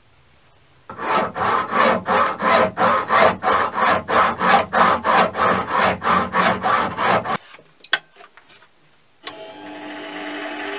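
Hacksaw cutting through an aluminium block, about three strokes a second for some six seconds, then stopping. After a few light clicks, the mini lathe starts up and runs steadily.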